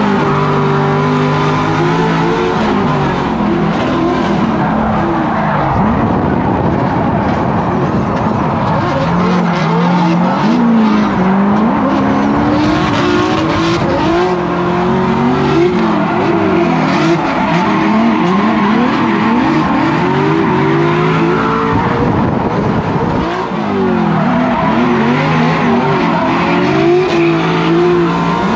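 Drift car's engine, heard from inside the cabin, revving up and falling back over and over through a tandem drift, with tires skidding and squealing.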